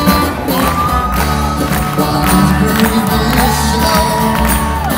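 Live amplified pop band and singer heard from inside the audience. The singer holds two long notes over a steady drum beat, with crowd noise underneath.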